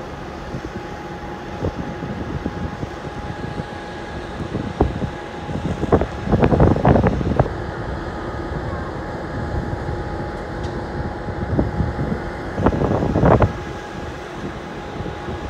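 Diesel-electric freight locomotive approaching along the line, a steady low rumble, with two louder bursts of rattling and knocking about six and thirteen seconds in.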